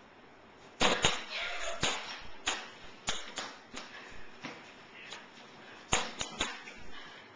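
A dozen or so sharp smacks and thumps, starting about a second in, the loudest near the start and near six seconds: a large inflatable exercise ball being thrown and slammed against the boys and the mat.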